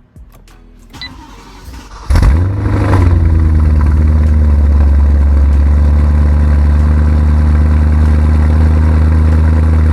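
BMW E93 M3's 4.0-litre V8 starting about two seconds in, with a brief flare of revs that settles within a second into a steady, loud idle.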